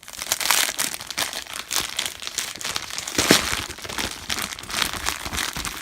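Packaging being handled and unwrapped, a continuous crinkling with many small crackles.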